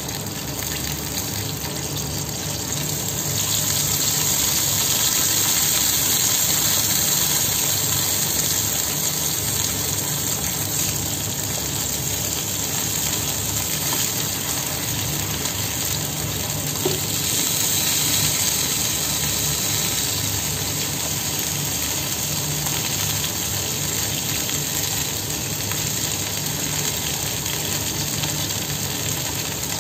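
Eggplant slices sizzling in shallow oil in a steel frying pan, a steady hiss. It grows louder a few seconds in and again just past halfway, as more slices are laid into the hot oil.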